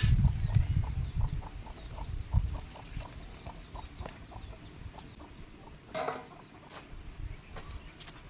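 A chicken clucking, a run of short clucks about three a second. A low rumble at the start and a brief noisy rustle about six seconds in.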